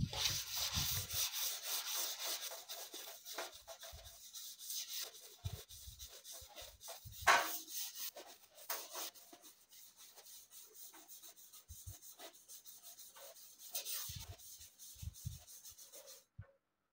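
Sandpaper rubbed by hand back and forth along a rusty bent steel pipe to strip the rust, a run of irregular scratchy strokes. The strokes are stronger in the first half and grow faint later, then stop shortly before the end.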